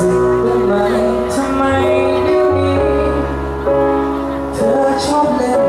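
Live band music: held chords over a bass line that changes note every second or so, with a few brief cymbal-like strokes on top.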